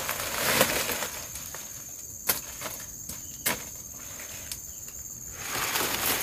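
Dry banana leaves and leaf litter rustling as they are handled and stepped on, with two sharp cracks a little over a second apart around the middle. A steady high drone of insects runs underneath.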